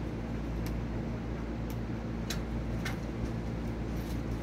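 A few short, light clicks, about five spread across a few seconds, over a steady low hum.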